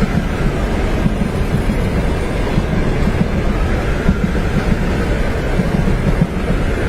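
Train running on its tracks: a steady, dense rumble as it would be heard from inside the carriage.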